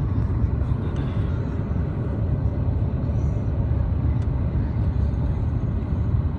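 Steady low rumble inside the cabin of an Airbus A350-900 airliner in flight on descent: air rushing past the fuselage and its Rolls-Royce Trent XWB engines running.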